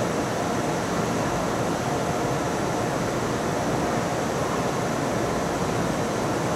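Steady rushing hum of a stationary EMU500 electric multiple unit, its air-conditioning and auxiliary equipment running.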